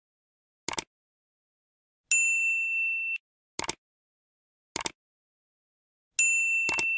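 End-screen sound effects for a subscribe button and notification bell: short mouse-click sounds, four in all, and twice a bright bell-like ding. Each ding holds one steady pitch for about a second and then stops abruptly; the second comes near the end.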